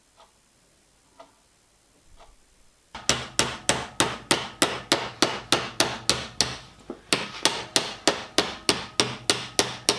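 A PTFE-covered hammer beating annealed copper sheet into shape. A few faint taps come about once a second, then about three seconds in a rapid, even run of sharp blows starts, about three or four a second, with a brief pause near seven seconds.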